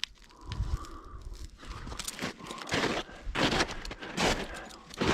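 Footsteps crunching at a steady walking pace, from about two seconds in.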